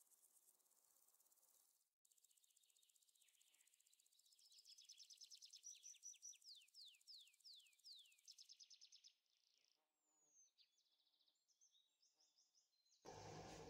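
Faint bird chirping over near silence: a quick run of high, falling chirps in the middle, then scattered calls. A louder noise starts near the end.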